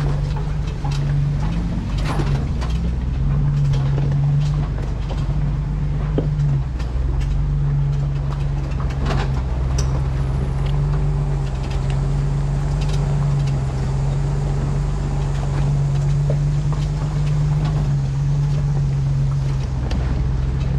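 Jeep engine running steadily at low speed on an off-road trail, a constant low hum, with scattered clicks and knocks over it.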